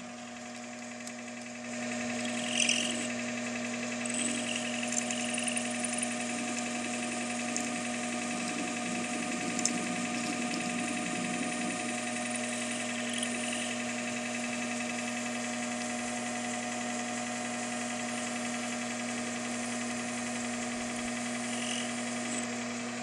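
Metal lathe running with a steady motor and gear hum while its cutting tool turns a small metal collar. The sound steps up in level about a second and a half in.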